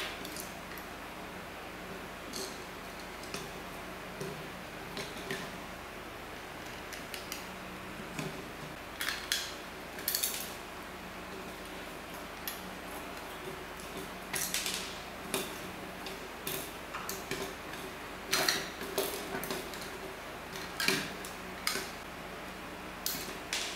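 Scattered small clicks, taps and scrapes of a small screwdriver and screws against the plastic housing of a PTZ security camera as it is taken apart by hand, with a faint steady hum underneath. The clicks come in irregular clusters, thickest in the second half.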